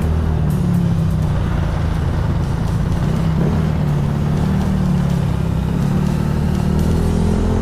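Motorcycle engine running steadily at speed on the road, with a continuous low drone and road and wind noise.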